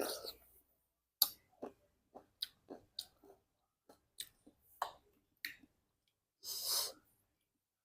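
Close-miked chewing of fresh fruit: a run of short, irregular wet crunches and mouth clicks, then a louder noise lasting about half a second near the end.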